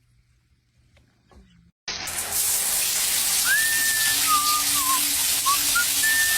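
Near silence for about two seconds, then a sudden steady rushing noise. From about three and a half seconds in, a whistled tune of short gliding notes plays over it.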